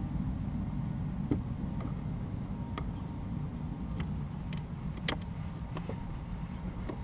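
About half a dozen small clicks and ticks from stripped wire and butt connectors being handled, over a steady low rumble.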